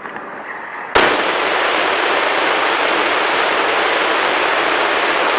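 A loud steady hiss that cuts in suddenly about a second in.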